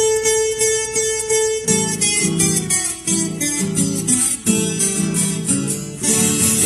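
Viola caipira playing an instrumental intro: a single high note plucked over and over, then from about two seconds in a melody in lower notes with a strummed rhythm.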